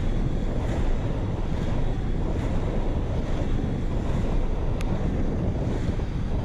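Heavy wind buffeting on an action camera's microphone, carried at skating speed of about 33 km/h, with faint swishes about once a second from the inline skater's strides. A single sharp tick comes about five seconds in.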